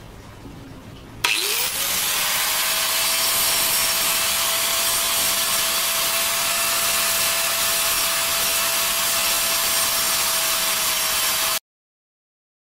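Handheld electric angle grinder switched on about a second in, its whine rising as the disc spins up, then running at a steady pitch while a plastic toothbrush handle is ground against the disc. The sound cuts off suddenly near the end.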